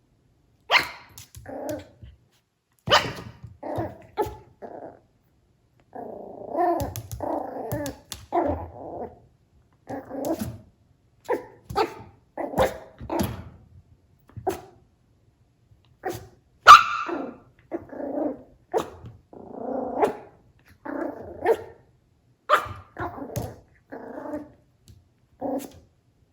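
Chihuahua–poodle mix puppy barking and growling in short, repeated bouts, with sharp yaps among longer growls.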